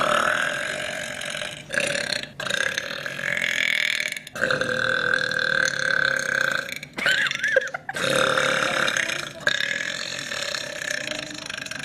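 A young woman burping: a string of about six long, drawn-out burps, each lasting one to two and a half seconds, with short breaks between them.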